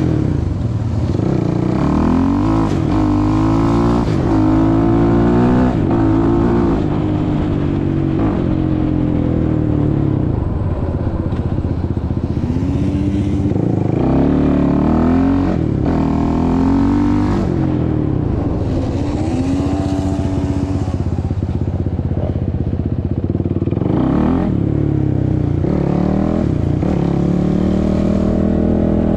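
Suzuki LT-R450 quad's single-cylinder four-stroke engine under way, revving up through the gears again and again: its pitch climbs and then drops back with each shift, easing off in between.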